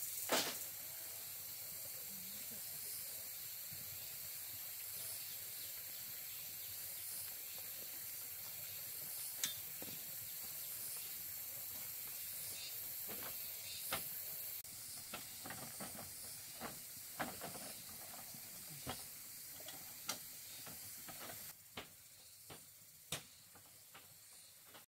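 Steady high-pitched hiss of forest insects, with scattered sharp crunches and snaps of footsteps on dry leaves and bamboo debris, coming more often in the second half.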